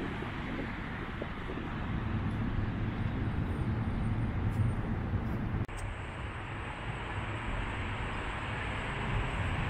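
Steady low rumble of vehicles and machinery, broken by a brief dropout a little past halfway.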